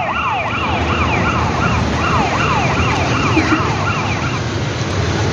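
Vehicle siren wailing in quick, repeated falling sweeps, about three a second, that stops near the end, over a low engine rumble.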